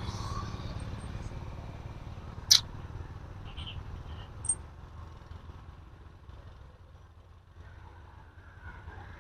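Hand tools working the Allen bolts on an excavator hydraulic cylinder's head-end cover, with one sharp metal clink about two and a half seconds in and a lighter ringing metal ping a couple of seconds later. Under it is a low steady rumble of a machine running.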